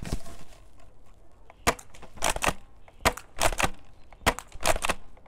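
Cyma M870 spring-powered airsoft shotgun being pumped and fired over and over: a string of sharp clacks, many in close pairs, starting under two seconds in.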